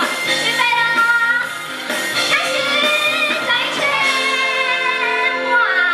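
Upbeat children's song with a woman singing the melody over instrumental backing, with held, gliding notes.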